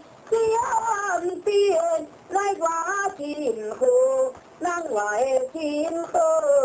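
A woman singing a Taiwanese opera (gezaixi) melody in short phrases with sliding, ornamented pitch and brief breaths between them, moving into a long held note near the end.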